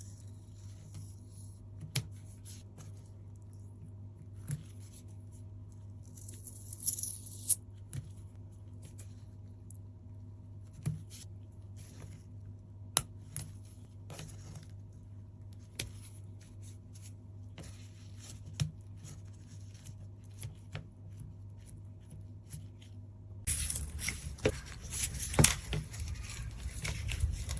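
Hands handling a squishy stress-relief toy: scattered sharp clicks, short tearing and crackling sounds, over a steady low hum. The crackling and rustling grow denser and louder near the end.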